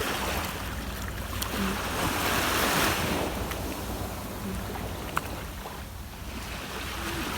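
Sea waves washing in, swelling and falling, with wind on the microphone. A single sharp click about five seconds in.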